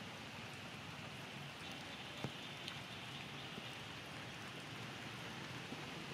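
Steady, even hiss of outdoor background noise, with a single sharp click a little over two seconds in.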